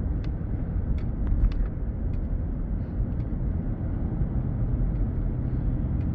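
Steady low rumble of a moving car, engine and tyre noise heard from inside the car, with a few faint clicks about a second in.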